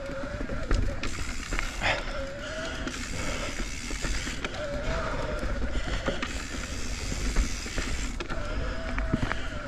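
Mountain bike rolling along a rooty dirt trail: tyre noise, with the chain and frame clattering over bumps in scattered sharp knocks. A steady low rumble runs underneath, and a high hiss comes and goes in stretches of a second or two.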